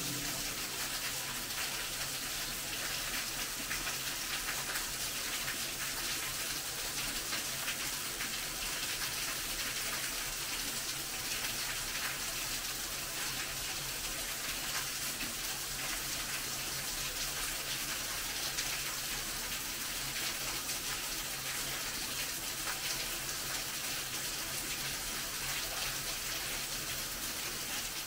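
Small waterfall: a thin stream of water falling down a rock face and splashing steadily.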